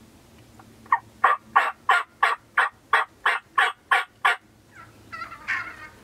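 Turkey yelping: a run of eleven evenly spaced yelps, about three a second, followed near the end by softer, irregular calls.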